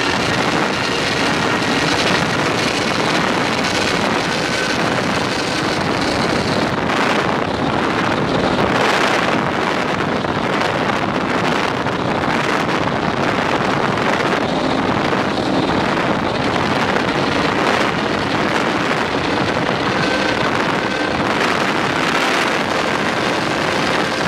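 Twin-engine offshore powerboat running at high speed: a loud, steady rush of engine and water noise with wind buffeting the microphone, with a few brief louder gusts near the middle.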